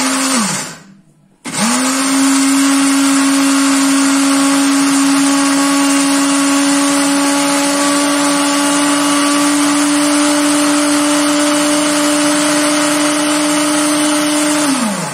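Electric countertop blender motor grinding dried chimichurri herbs to powder. It is switched off just after the start and spins down, then restarts about a second and a half in and runs at a steady pitch before winding down near the end.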